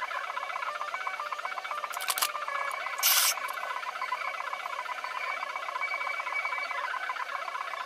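Background music made of quick, high-pitched notes. A cluster of sharp clicks comes about two seconds in, and a short, loud burst of hiss comes just after three seconds.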